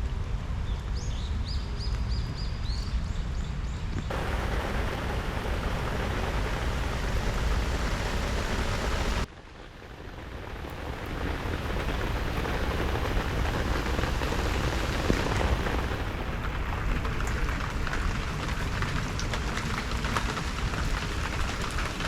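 Steady rain falling, with a low rumble under it. A few short high chirps sound about one to three seconds in, and the sound drops away abruptly about nine seconds in before building back up.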